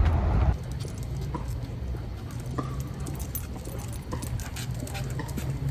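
Light metallic jingling and scattered clicks from a walking dog's collar tags and leash, after a low rumble that stops about half a second in.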